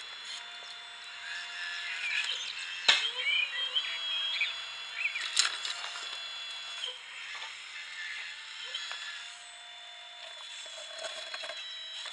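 Radio-controlled Liebherr R944B model excavator working: the whine of its electric motors and hydraulic pump rises and falls in pitch as the arm digs, lifts and swings. A sharp click comes about three seconds in and another about five and a half seconds in.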